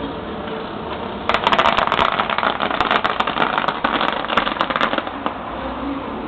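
Fireworks crackling: a dense flurry of rapid crackles starts about a second in and dies away near the end.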